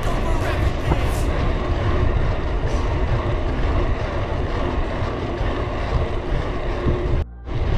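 Wind rushing and buffeting on an action camera's microphone while riding a mountain bike at speed on asphalt, a steady loud rumble heaviest in the lows. It cuts out suddenly for a moment near the end.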